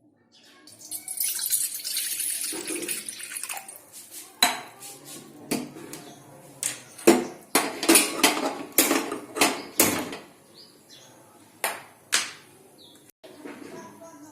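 Water running or pouring into a vessel for about three seconds, then a run of sharp clinks and knocks of kitchen utensils and pots being handled, with two more clinks near the end.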